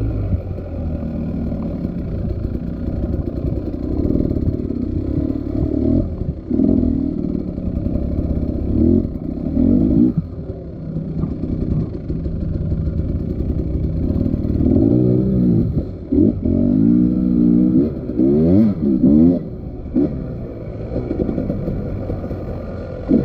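Motorcycle engine revving up and down as it is ridden, its pitch rising and falling over and over, with the quickest run of blips late on.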